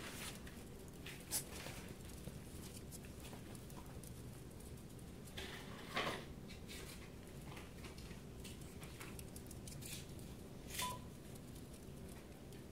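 Faint small clicks and smacks of a newborn Yorkshire Terrier puppy suckling milk from a feeding syringe, with three louder ticks: about a second and a half in, at six seconds, and near eleven seconds.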